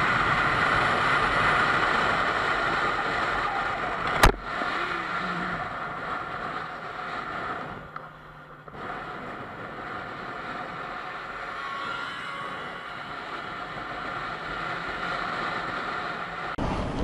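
Motorcycle running at highway speed, its engine mixed with steady wind rush on the rider's camera microphone. There is one sharp click about four seconds in, and the sound drops out briefly near the middle before the steady road noise returns more quietly.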